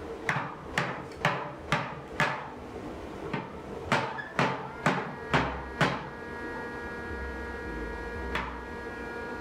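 A series of sharp knocks, about two a second: five in a row, a short pause, six more, then a single knock near the end.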